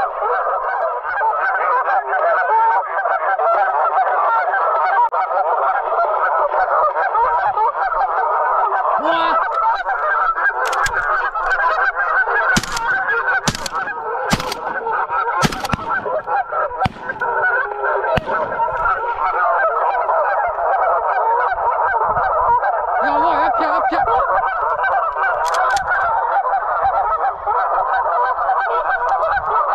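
A large flock of geese honking continuously in a dense chorus. A handful of sharp clicks or knocks come through over it about midway.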